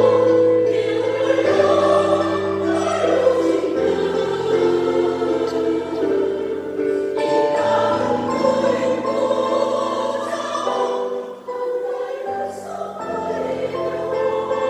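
Senior citizens' choir singing in harmony, sustained notes in long phrases, with a brief break between phrases about eleven seconds in.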